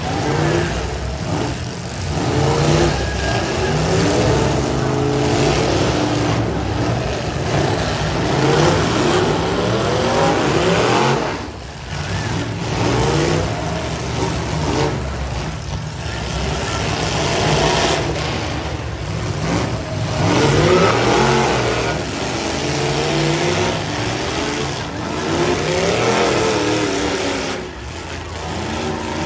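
Several demolition derby cars' V8 engines running hard, revving up and down again and again in overlapping rises and falls of pitch as the cars push and ram each other.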